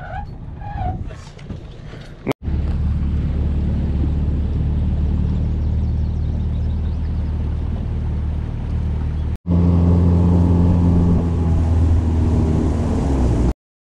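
Boat motor running steadily under way, a loud low drone with wind noise on the microphone. About nine seconds in it breaks off for an instant and comes back louder.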